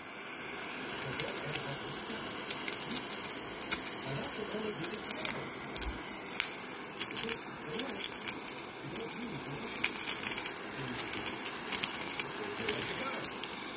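Handheld butane kitchen torch burning with a steady hiss, its flame aimed at a slice of ham on a cracker, with scattered small crackles throughout.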